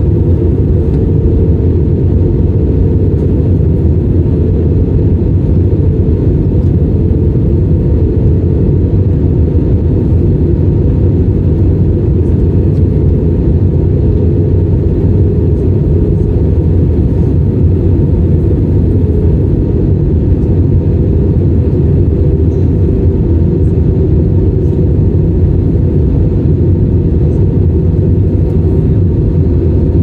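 Jet airliner cabin noise during descent: the steady, loud rumble of the engines and the airflow over the fuselage, heard from a window seat over the wing.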